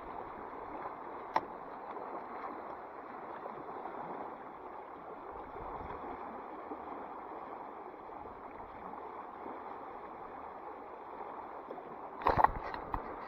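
Creek water running steadily over a riffle. There is a sharp click about a second in, and a short cluster of louder clicks and knocks near the end.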